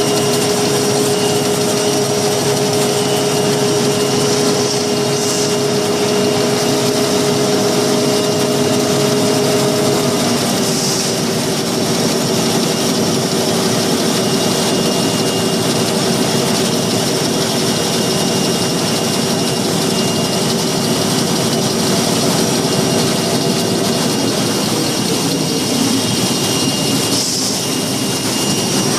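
High-capacity napkin-making machine running: a steady, dense mechanical din with a constant hum, whose pitch shifts slightly about ten seconds in.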